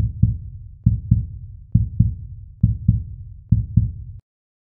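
Heartbeat sound effect: five deep double thumps, about one pair a second, that stop abruptly about four seconds in.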